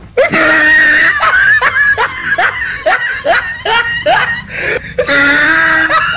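A person laughing hard: long drawn-out cries near the start and near the end, with a run of short falling 'ha' bursts, about three a second, in between.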